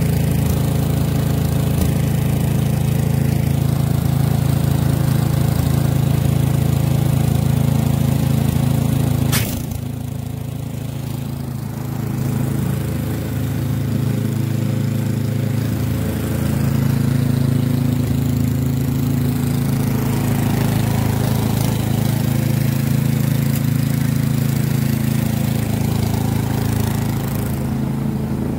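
Toro SnowMaster 824 QXE snowblower's single-cylinder four-stroke engine running steadily at working speed while it clears the driveway. There is a short, sharp click about nine seconds in; after it the sound dips and then builds again as the machine comes back closer.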